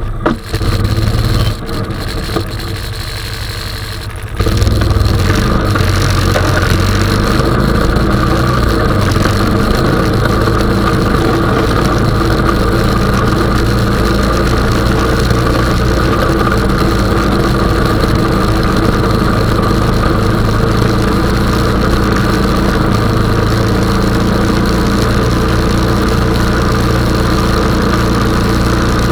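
Honda 420 ATV's single-cylinder engine running. It gets much louder about four seconds in and then runs steadily, its pitch shifting slightly up and down.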